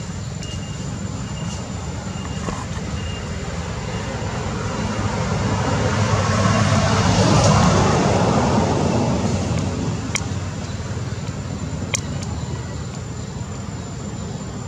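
A motor vehicle passing by, its noise building up, peaking about halfway through and fading away, over a steady background hum. A couple of faint short ticks follow.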